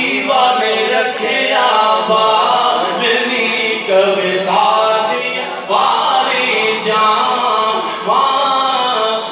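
A man's voice singing a naat, an Islamic devotional song in praise of the Prophet, unaccompanied. It comes in long melodic phrases with short breaks between them.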